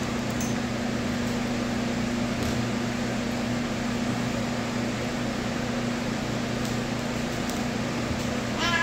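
Steady hum of a small electric fan's motor with rushing air. Right at the end a cat starts to meow.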